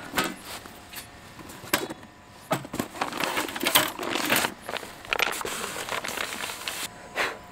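Irregular crisp crackling and crunching at a box of fried chicken, in short scattered bursts.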